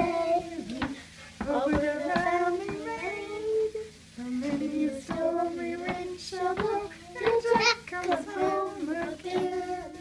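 Children singing a song together, holding notes and gliding between them in short phrases.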